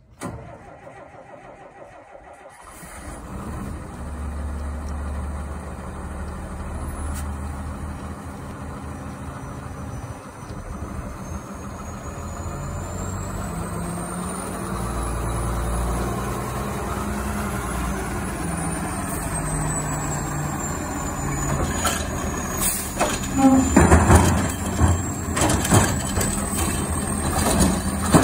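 2006 Sterling Condor garbage truck's 8.8-litre inline-six diesel running as the truck drives up, getting louder as it comes close. Near the end its automated side-loader arm lifts a trash cart, with loud clanks and bangs.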